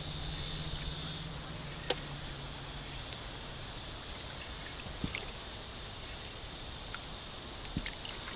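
Waterside ambience: a steady hiss with the low hum of a distant motorboat that fades out about three seconds in, and a few faint clicks.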